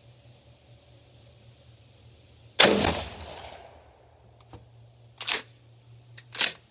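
A single shotgun shot firing a handloaded Lee Drive Key slug, loaded with 14 grains of Bullseye powder that the shooter feels is a little overpressured: a sharp report with an echo dying away over about a second. About two and a half seconds later come two shorter, sharp clacks about a second apart, each with a faint click just before it.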